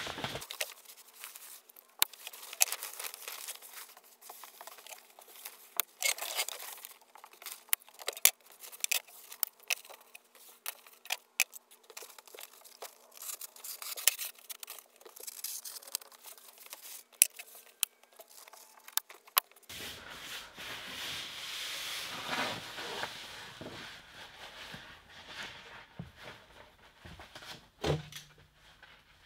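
Hand staple gun firing staples through a plastic vapor barrier sheet into the wall, sharp clicks at irregular intervals, with the plastic sheet rustling and crinkling as it is smoothed and handled.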